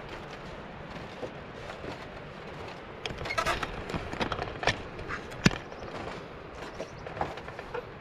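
Irregular knocks and clicks over a steady hiss. They come in a cluster from about three to seven and a half seconds in, with one sharp knock about five and a half seconds in standing out as the loudest.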